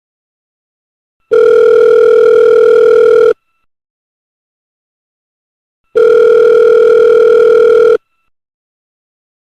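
Telephone ringing: two rings of about two seconds each, a steady tone with a slight rapid flutter, separated by a couple of seconds of silence.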